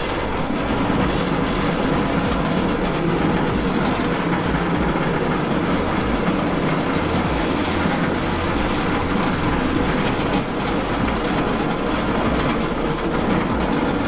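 A heavy vehicle running steadily, its engine noise even and unbroken throughout.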